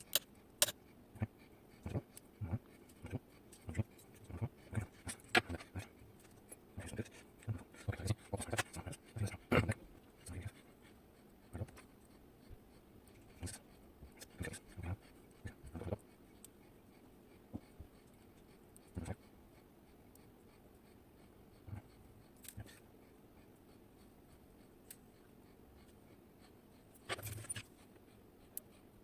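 Small metal clicks and taps of tools working pins and springs out of a disassembled Kaba Gemini Plus dimple-key lock cylinder. The clicks come quickly for the first half, then thin out to scattered ticks, with a short flurry near the end.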